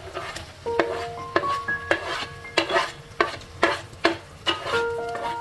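Sliced red onions sizzling as they go into hot oil in a wok, stirred with a wooden spatula in a series of sharp strokes against the pan.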